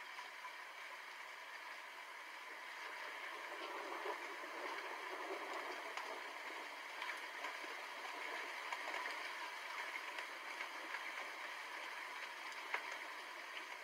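Steady rain falling: an even hiss with scattered ticks of drops and one sharper tick near the end, swelling slightly a few seconds in. No thunder rumbles here.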